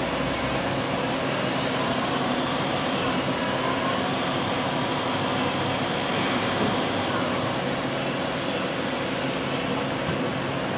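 Jinn Fa JSL-32AB Swiss-type CNC lathe running, cutting a part dry without coolant: a steady machine hum with high motor whines that drop in pitch twice, about three seconds in and again near eight seconds.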